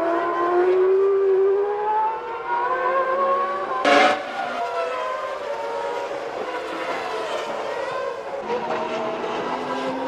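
Formula One racing engines at high revs, several at once, their pitch rising and falling, with one short sharp crack about four seconds in.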